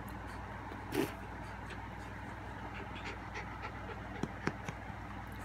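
A young puppy held up close, making faint panting and mouth sounds, with one short louder sound about a second in. A low steady hum runs underneath.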